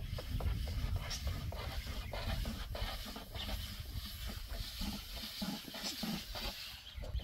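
Long thin wooden rolling pin knocking and rolling on a wooden bread board as thin flatbread dough is rolled out, giving many short irregular taps over a low steady rumble.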